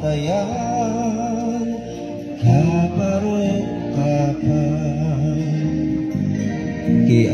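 A male voice singing into a microphone over musical accompaniment, with long held notes that waver in pitch.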